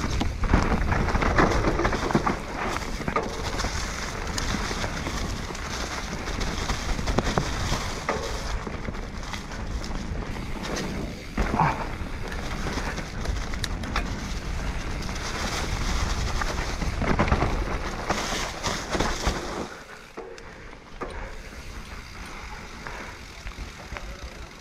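Mountain bike being ridden down a trail: a steady rushing noise of the ride with rattles and knocks from the bike over the ground, growing quieter near the end.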